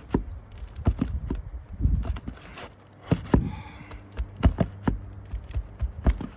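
A tool scraping and knocking against brittle asphalt shingles, with irregular sharp clicks and a few scrapes, as it is worked up under a shingle to get at a nail.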